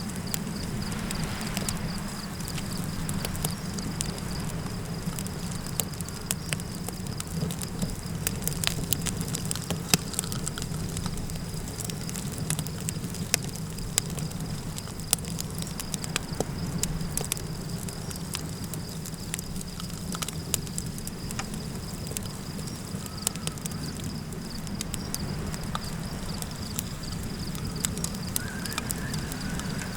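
Campfire crackling, with sharp pops scattered irregularly throughout, over a steady low rumble and a continuous thin high-pitched drone.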